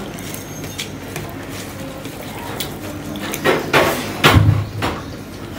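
Stainless steel plate and bowls knocking and clanking on a table while rice is mixed by hand, a cluster of several sharp knocks about three and a half to five seconds in, the heaviest a dull thud.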